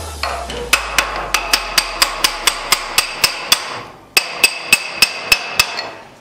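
Hammer driving a steel drift against the steering-stem nut on the frame head of a Suzuki GSX1000 to knock it loose. A steady run of ringing metal-on-metal blows, about three or four a second, with a short break about four seconds in.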